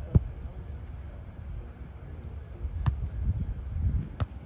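A volleyball struck by hand three times: a sharp slap just after the start, the loudest, then two more about three and four seconds in, over a steady low rumble.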